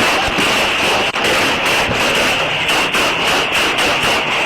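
A rapid run of gunshots, several a second without let-up, loud and harsh on the microphone, in an exchange of fire in which an officer is hit.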